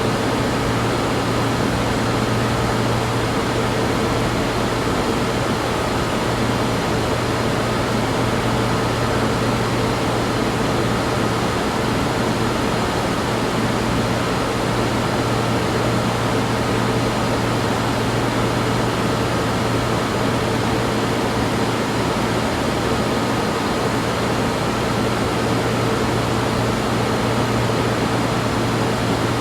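Science-fiction laboratory ambience sound effect: a steady machine hum with a low drone and a few faint sustained tones over an even hiss, unchanging throughout.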